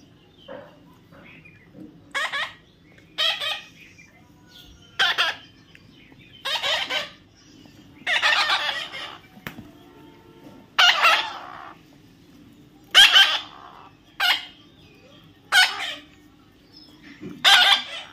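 Baby parrot giving a string of about ten harsh, raspy squawks, each under a second long, one every second or two.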